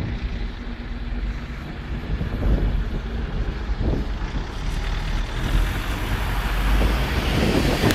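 Road traffic: a car pulling away and driving over the level crossing as the barriers lift, engine and tyres rising in level as it passes close, over a steady low rumble.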